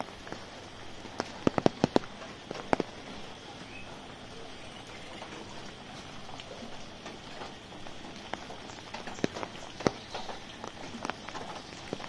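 Rain falling on an umbrella as a steady hiss, with sharp louder drop hits in quick clusters a little over a second in and again near the ten-second mark.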